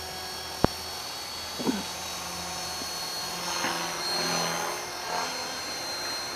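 Align T-Rex 450 electric RC helicopter in flight: a steady high whine from its motor and spinning rotor, swelling and shifting in pitch midway as it manoeuvres. A single sharp click about half a second in.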